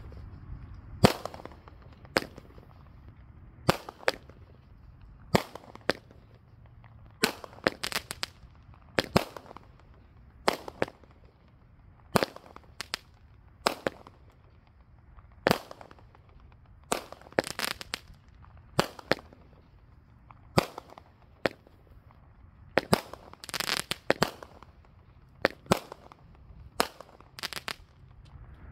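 A Brothers Pyrotechnics Super Stallion 200-gram consumer firework cake firing its shots one after another, a sharp report about once a second, some followed by brief crackling.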